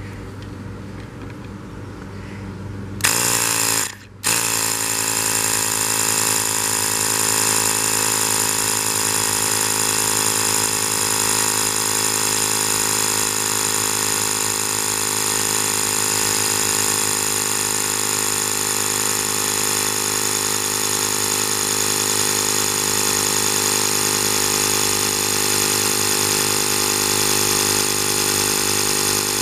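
Ryobi handheld air inflator's compressor running, pumping up small pneumatic air tanks as the pressure climbs toward 100 psi. It starts about three seconds in, cuts out for a moment a second later, then runs steadily.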